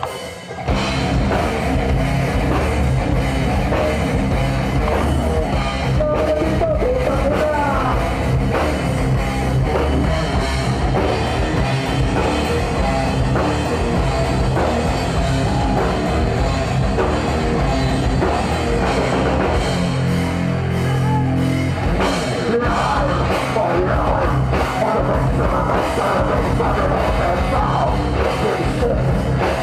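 Live heavy rock band starting a song about half a second in: distorted electric guitars and a drum kit played loud through a PA, with a singer's vocals at times.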